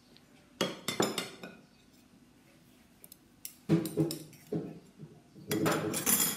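A metal spoon and crockery clinking and knocking, in three short bursts of clatter: about half a second in, near four seconds, and near the end.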